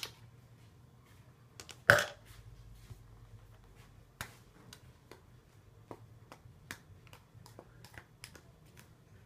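Plastic spoon stirring pancake batter in a plastic bowl, knocking against the bowl in irregular sharp clicks, with one loud knock about two seconds in.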